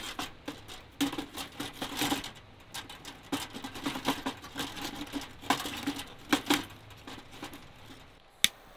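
Objects being handled: an irregular run of light knocks, taps and rustles, ending with a single sharp click.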